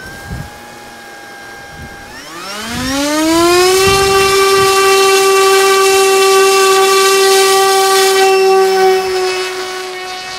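senseFly eBee drone's electric motor and propeller spinning up with a rising whine about two seconds in, then holding a steady high whine at full throttle for the hand launch. The whine fades near the end as the drone flies away.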